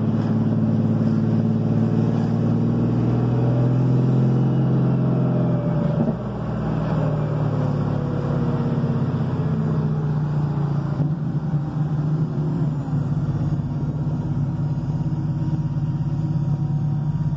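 Porsche 911's turbocharged air-cooled flat-six engine running while driving, heard from inside the cabin. A low, steady drone rises in pitch over the first few seconds, dips briefly about six seconds in, then falls away.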